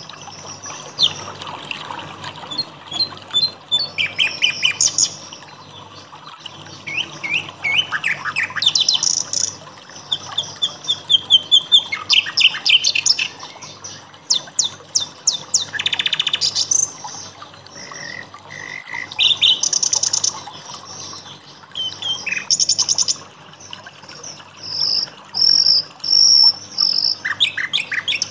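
Songbirds singing: a varied, busy string of chirps, rapid trills and short whistled phrases, with little pause between them.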